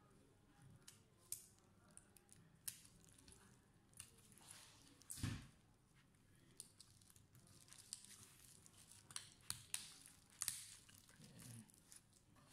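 Faint scattered clicks and rustles of hands handling a Dell Inspiron 3511's metal display hinge and bracket, with one louder thump about five seconds in.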